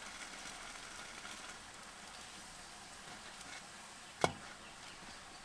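Burger buns toasting cut-side down in a frying pan on a camp gas stove, giving a faint steady sizzle. A single sharp knock sounds about four seconds in.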